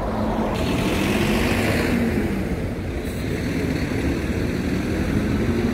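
Steady rumble of road traffic with an engine hum, vehicles passing by, growing a little fuller about half a second in.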